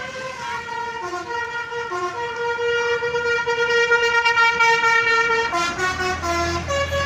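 Bus basuri horn playing a telolet tune: a run of quick stepped notes, then one long held note, then more quick notes. A low engine rumble comes in near the end.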